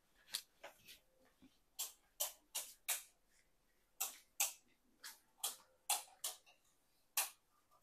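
Light, sharp clicks or taps, in short runs of two to four about a third of a second apart, separated by brief pauses.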